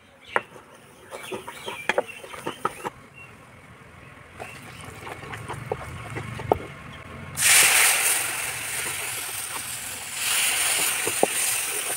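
Metal spoon clinking and scraping in a pan as chilli powder is stirred into hot oil, then a sudden loud sizzling hiss about seven seconds in as water hits the hot oil; the sizzle eases briefly and swells again near the end.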